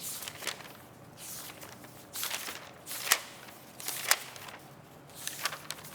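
A few short rustles and clicks of handling noise, roughly a second apart, over faint room tone.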